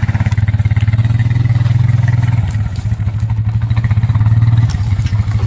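ATV engine running hard under load while it drags a log up a rocky slope a little at a time. The engine note drops briefly about two and a half seconds in and again near the end.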